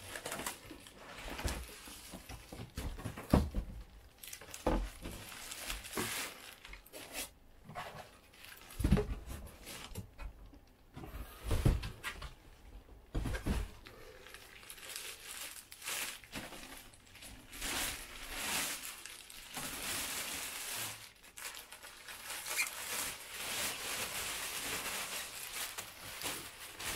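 Plastic bag wrapping crinkling and rustling as an electric unicycle is handled and lifted out of its cardboard box, with several knocks and thumps in the first half. In the second half, steadier crinkling as the plastic is pulled off the wheel.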